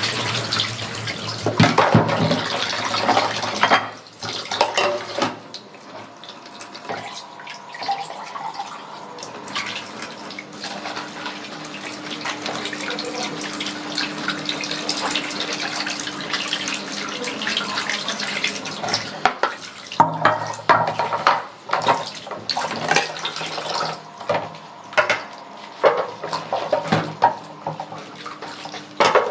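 Dishwashing at a kitchen sink: the tap runs at first, then plates and utensils are handled and scrubbed, with frequent short clinks and clatters of dishes near the end.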